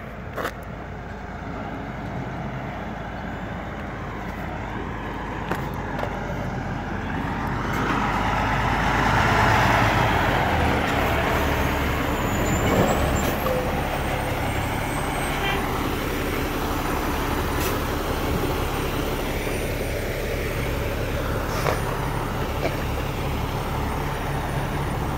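Diesel semi truck pulling an empty lowboy trailer, its engine running as it rolls slowly past close by. It gets louder as it nears and is loudest about ten seconds in, with a few short clanks along the way.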